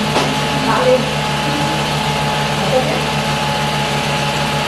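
Film projector running: a steady motor whir with a low hum and a thin high tone.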